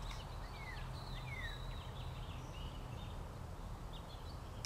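Several songbirds chirping and calling, a busy mix of short chips and quick downward-sliding whistled notes, over a steady low rumble.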